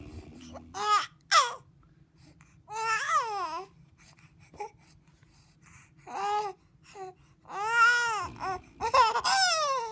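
Baby cooing: a string of about six drawn-out vowel sounds, each arching up and down in pitch, the longer ones coming about three seconds in and near the end.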